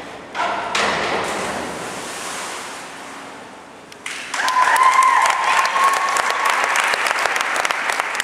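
A diver's entry splash into the pool less than a second in, echoing and fading in a hard indoor pool hall. From about four seconds in, clapping and cheering from teammates, with one long high call held over the applause.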